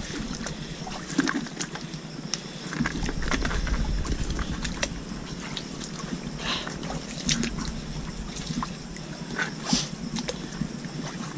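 Footsteps squelching and sloshing through soft mud and shallow water among mangrove roots, with many small scattered clicks and crackles.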